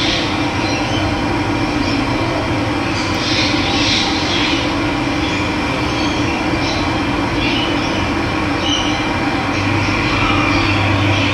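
Steady rush of running water with birds chirping now and then over it; a low hum comes in near the end.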